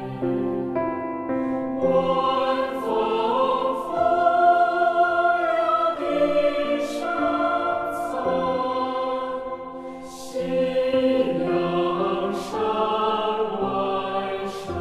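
Large choir singing long held chords, with a brief drop in level about ten seconds in.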